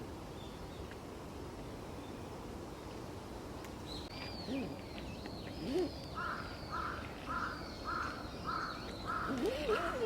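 Birds calling: high, arching chirps start a few seconds in, then a run of about eight harsh repeated calls, roughly two a second, over a steady background hum.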